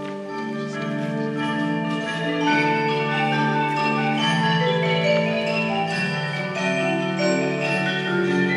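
Live band music with mallet percussion prominent, playing sustained overlapping notes that change pitch throughout, growing louder over the first two or three seconds.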